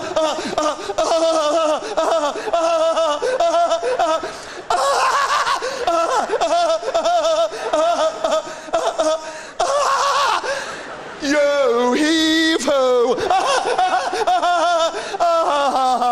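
A man laughing loudly and without let-up, a long run of rapid 'ha-ha' bursts broken by short pauses, the pitch swooping up and down about twelve seconds in.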